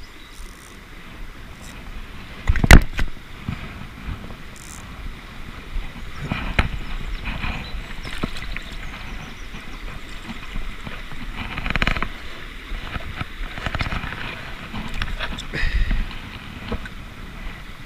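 Shallow river water running, with knocks and rumbling handling noise on a body-worn camera; a single sharp knock about three seconds in is the loudest sound.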